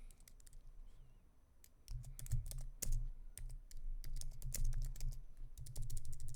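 Typing on a computer keyboard: a few scattered keystrokes, then quick runs of keys from about two seconds in, fastest near the end.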